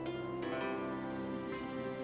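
Background music: gentle plucked strings like harp or pizzicato over held notes.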